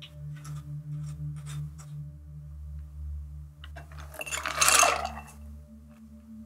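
Dry vermouth poured from a jigger into a cut-glass mixing glass: a splash lasting about a second and a half in the second half. Soft ambient background music plays underneath, with a few faint light clicks early on.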